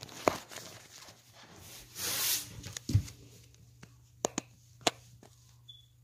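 Handling noise from a phone held close to the face: scattered sharp clicks and taps, a brief rustle about two seconds in and a low thump about three seconds in, over a faint steady hum.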